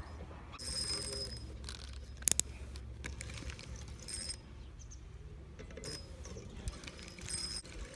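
Fishing reel whirring in four short, high-pitched bursts while a hooked carp is played, with a sharp double click about two seconds in.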